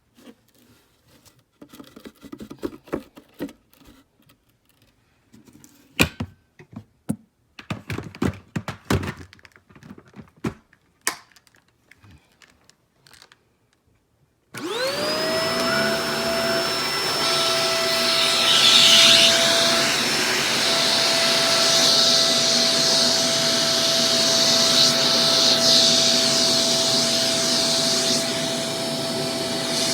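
Scattered clicks and knocks of handling, then about halfway through a Shark Professional Powered Lift-Away DLX (NV586) vacuum cleaner switches on. Its motor spins up with a rising whine and settles into a steady run, with a high whine over the motor's rush of air.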